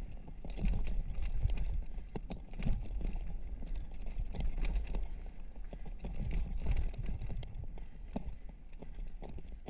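Riding noise of a mountain bike descending a rocky trail, picked up by a GoPro mounted on a full-face helmet: a constant low rumble of tyres and wind buffeting with frequent sharp clatters and knocks as the bike and helmet rattle over the rocks, easing a little near the end.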